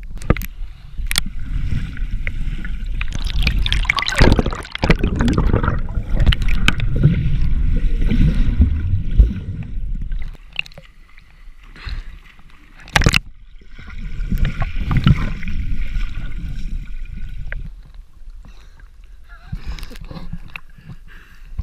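Water sloshing, splashing and gurgling against a waterproof action camera as it dips under and breaks the surface beside a swimmer, in two long noisy stretches with quieter gaps between. A few sharp knocks stand out, the strongest about 13 seconds in.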